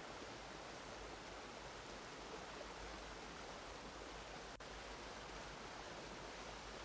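Faint, steady rushing-water ambience of a waterfall, an even hiss-like wash with one very brief dip about four and a half seconds in.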